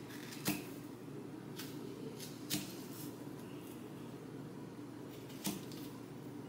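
Knife slicing strawberries on a plate, its blade giving a few sharp clicks against the plate, over a faint steady hum.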